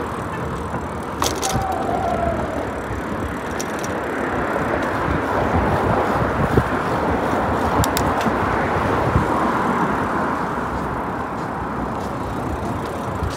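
Mountain bike rolling along a paved sidewalk: a steady rush of riding noise, tyre rumble and wind over the microphone, swelling slightly in the middle, with a few sharp clicks.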